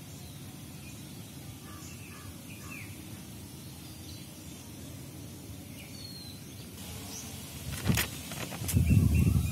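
Steady low background noise with occasional faint bird chirps. Near the end come two sharp clicks, then a louder low rumble.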